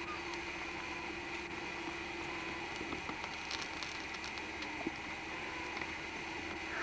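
Steady hiss with a faint hum and a few faint scattered clicks.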